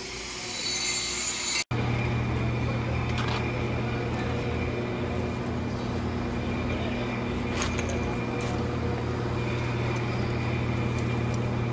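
Arc welding on pipe for a 6G-position weld test: a steady crackling hiss over a constant low hum from the welding machine. The sound breaks off abruptly for an instant a little under two seconds in and resumes at once.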